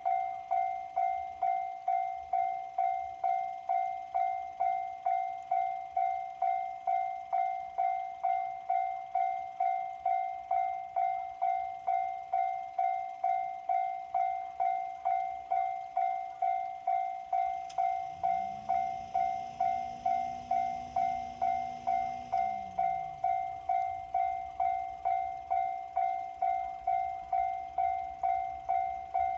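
Japanese railway level-crossing alarm ringing its repeated electronic 'kan-kan' bell tone, just under two strikes a second, warning that a train is approaching.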